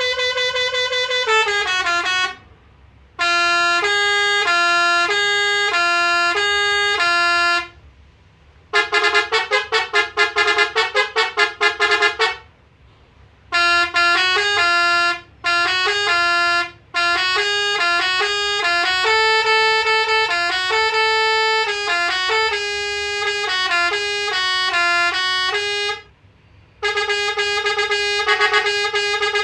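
MSK Road Master RM-615 24-volt telolet musical air horn playing a series of tunes in brassy horn notes that step between a few pitches. The tunes are split by several short pauses, and one passage about a third of the way in is a run of fast repeated notes.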